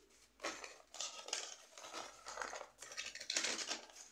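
Heavy paper fast-food bag crinkling and rustling in irregular bursts as it is handled, starting about half a second in.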